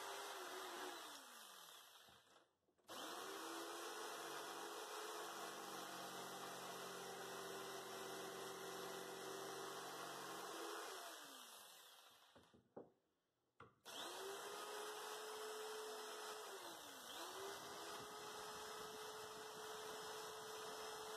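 Corded jigsaw cutting the waste out of a notch in a wooden board for a joint. It runs in three bursts: twice the motor winds down with a falling pitch to a short pause and starts up again, and in the last run it dips briefly and picks back up.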